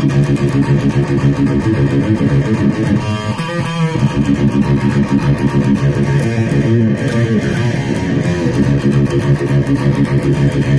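ESP/LTD MH-100QMNT electric guitar played through an amp in a busy run of quickly picked notes, with a wavering high note held with vibrato about three seconds in. The strings sit very high off a bowed neck, so the action is poor.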